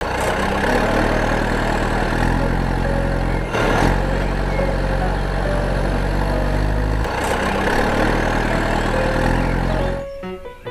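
An engine running steadily, its tone changing abruptly twice, about three and a half and seven seconds in. Music with separate melodic notes starts near the end.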